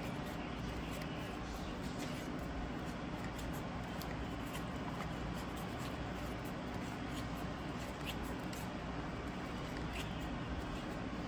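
Topps baseball trading cards being flipped through by hand, card stock sliding against card stock with faint, scattered flicks and clicks over a steady low room hum.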